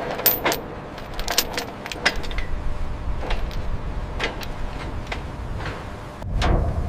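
Irregular light metallic clinks and clicks, a dozen or so, over a steady low rumble that grows louder about six seconds in.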